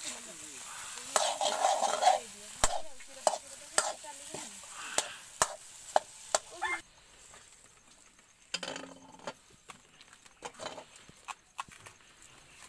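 Metal spoon clinking and scraping against a metal kadai while stirring a mashed potato filling frying in oil, about two knocks a second over a light sizzle; after about seven seconds the stirring thins to a few scattered clicks. A short pitched sound stands out about a second in and again near nine seconds.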